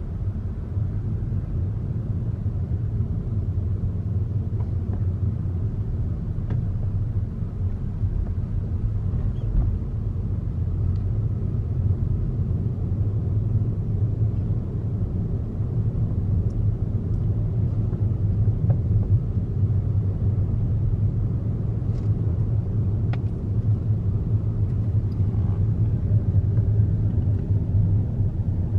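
Steady low rumble of a car driving along the road, engine and tyre noise, with a few faint clicks.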